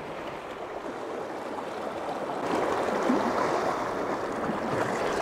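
Sea water washing and surging against shoreline rocks, an even rushing noise that swells louder about halfway through.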